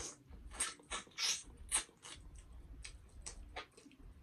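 Close-miked mouth sounds of someone eating a handful of rice and stewed pork trotter: an irregular run of wet lip smacks and chewing clicks, loudest in the first two seconds and lighter after that.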